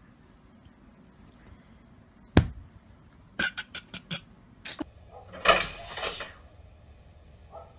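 A sharp knock, then a quick run of about five light clicks and taps a second later. About five and a half seconds in comes a louder clattering rattle: a cat pawing at a door's mail slot flap, knocking the flap.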